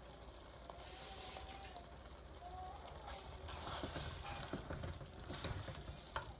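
Chicken and chickpea curry sizzling in the pot while it is stirred, with a few short knocks in the second half.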